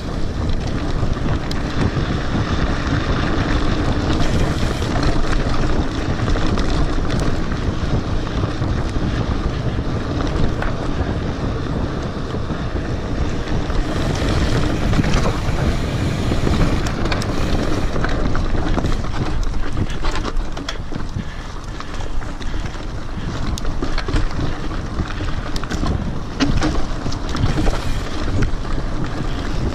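Wind rushing over the microphone of a handlebar-mounted camera on a mountain bike riding a dirt trail, with the rumble of the tyres and scattered knocks and rattles from the bike over rough ground.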